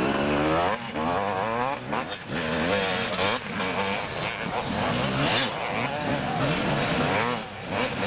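Several 250cc two-stroke motocross bikes racing at once, their engines revving up and down through the gears.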